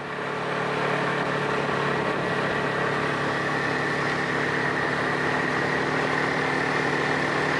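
Snowmobile engine running at a steady speed on the move, growing louder over the first second and then holding an even pitch.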